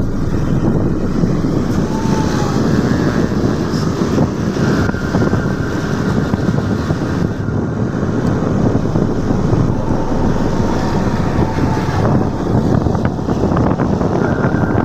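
Loud, steady rumble of wind buffeting the microphone, with faint thin high tones in the background.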